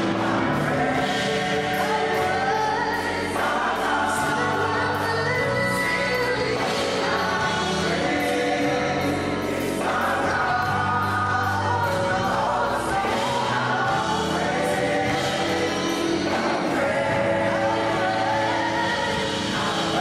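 Gospel choir singing in full harmony, backed by a live band of drums, electric bass guitar and keyboard.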